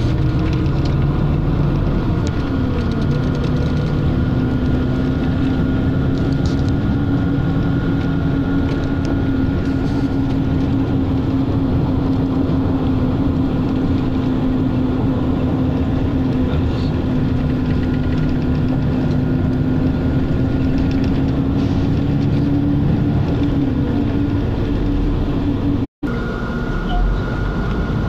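Ride inside a moving road vehicle: steady running and road noise with a whine that shifts in pitch as the speed changes. The sound cuts out for an instant about two seconds before the end.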